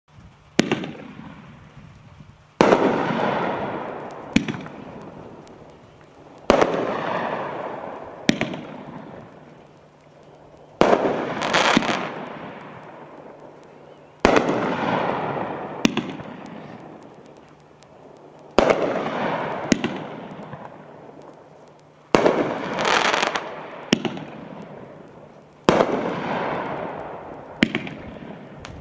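A "Whoop-ass! (100% Pure)" 500 gram consumer fireworks cake firing shot after shot. There are about seven loud bangs, one every three to four seconds, each trailing off in a fading crackle, with smaller sharp cracks in between.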